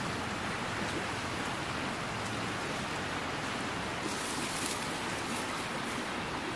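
A steady, even hiss of outdoor background noise, with a brief brighter patch in the hiss about four seconds in.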